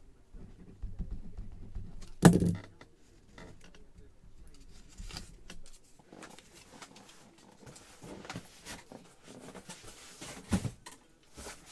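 Handling noise: scattered knocks, clicks and rustles, with one loud thump about two seconds in and a smaller one near the end, as boxed football helmets are handled.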